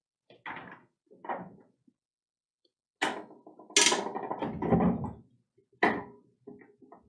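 Aluminum scissor steps being pulled out to full length. The folding metal linkage clanks and rattles in several bursts, loudest about three to five seconds in, and ends with a few light clicks.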